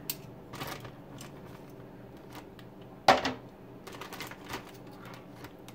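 Metal kitchen tongs and a plastic zip-top bag handled over a disposable foil pan: scattered light clicks and taps, with one sharper click about three seconds in.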